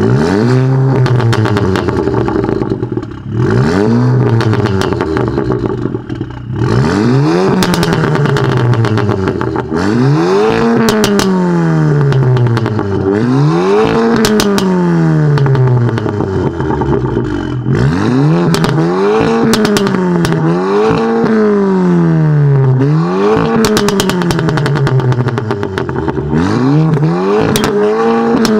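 Exhaust of a stage 1 tuned VW Golf GTI Performance with a 2.0 turbocharged inline-four and a custom valved turboback exhaust, free-revving while parked. It is blipped about ten times, each rev climbing quickly and falling back, with sharp crackles among the revs.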